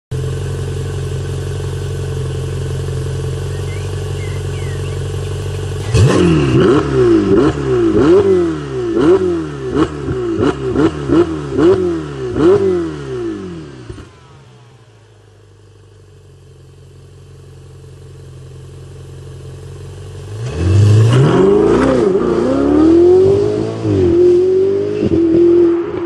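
Ferrari 488 GTB's twin-turbo V8 idling, then revved in a rapid series of about a dozen sharp blips, each climbing and falling back. It goes quiet for a few seconds, then the car accelerates hard away with the pitch climbing through two upshifts.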